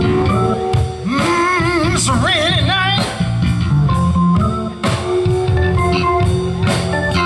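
Live band with organ, bass, electric guitar, drums and horns playing a slow soul ballad. From about one to three seconds in, a high wailing tone with heavy vibrato rises over the band, imitating a train whistle.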